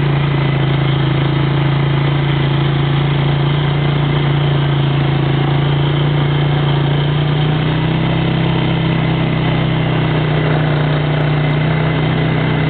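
ATV (quad bike) engine running steadily at an even, low pitch as the quad travels slowly along a dirt track.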